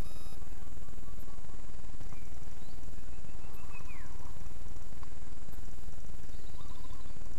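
Steady low outdoor rumble with a few faint bird calls, one a short falling whistle about four seconds in.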